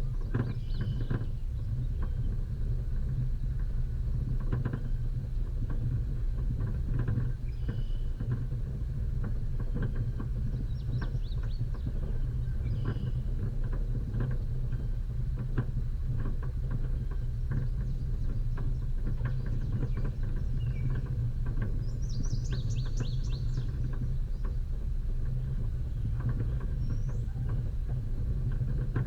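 Off-road vehicle driving over a rough track: a steady low engine rumble with frequent knocks and rattles from the bumps. Birds chirp a few times, most clearly about three quarters of the way through.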